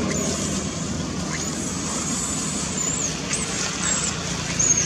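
Steady low background rumble, with faint, thin, high-pitched wavering chirps now and then.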